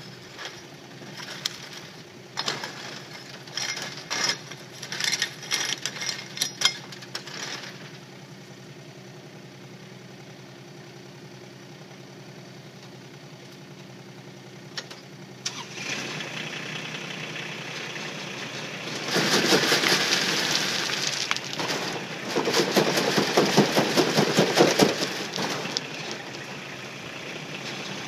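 Kubota K008-3 mini excavator's diesel engine running steadily, with scattered sharp clacks of stone for the first several seconds. The engine rises in level about halfway through. It is followed by two long spells of loud, dense rattling of stony soil being worked over a screen, the loudest part.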